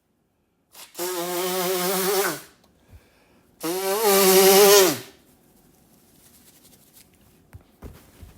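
A person sneezing twice: two long, voiced sneezes about two and a half seconds apart, the second louder and falling in pitch at its end.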